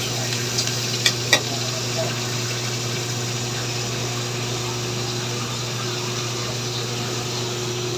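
Squid sizzling and simmering in its own juices in an aluminium wok, a steady hiss over a low hum. A metal spatula clinks twice against the wok about a second in.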